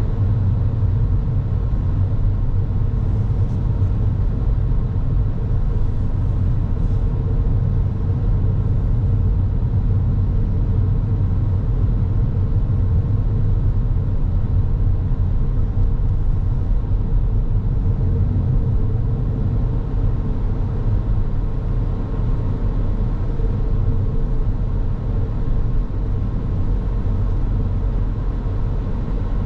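A car driving along at steady speed: a continuous low rumble of road and engine noise with a faint steady hum.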